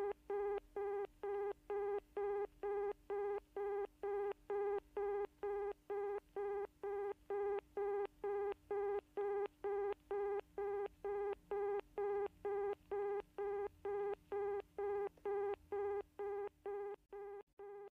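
Telephone busy signal: one steady-pitched beep repeating rapidly and evenly, about two and a half times a second, meaning the line dialled is engaged. It fades slightly near the end.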